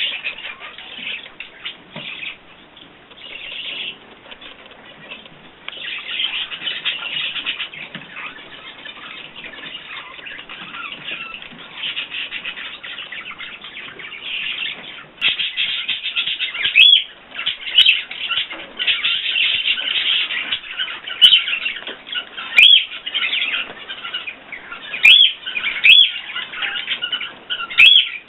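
Small pet birds chirping and twittering in a continuous chatter, with louder, sharp chirps repeating through the second half.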